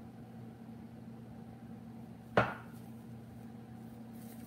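A single sharp knock with a short ringing tail about halfway through, a drinking cup set down on the counter, over a steady low hum. Near the end, the crackly rustle of a disposable glove being pulled onto a hand.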